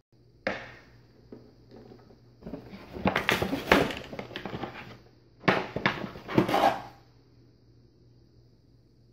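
Hands handling hard plastic toy parts and their clear plastic packaging, with clacking and rustling. There is a single knock about half a second in, then a couple of seconds of dense rattling, and two more short bursts a little later.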